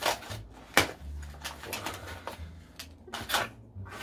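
Cardboard shipping box being cut and opened: two sharp snaps of scissors or cardboard, one right at the start and one about a second in, then crackling and a scraping rush as the taped flaps are pulled open and the paper packing inside rustles.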